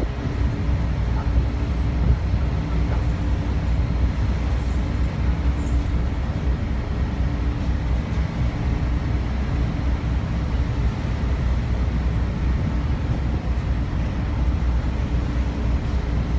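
Steady low drone of the Ogasawara Maru ferry's engines, with the noise of wind and the sea rushing past the hull.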